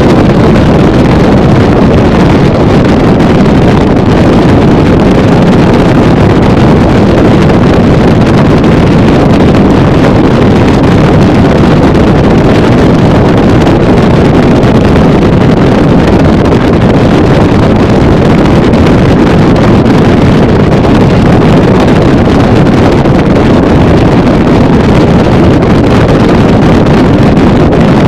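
Loud, steady wind rush on the microphone from a motorboat running at speed, with the boat's motor and hull noise mixed in underneath.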